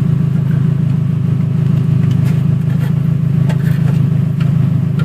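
Toyota Camry race car's engine idling steadily, with a fast, even pulse. A few light clicks come in the middle as the dashboard wiring and trim are handled.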